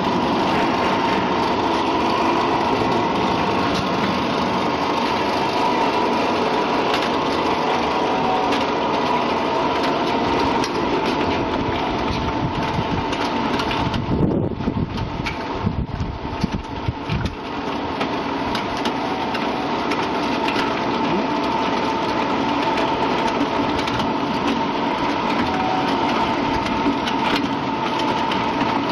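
Continuous peanut frying machine running, with its gas burner and stainless steel mesh-belt conveyor. It makes a steady mechanical whir with a constant mid-pitched hum, dipping unevenly for a few seconds about halfway through.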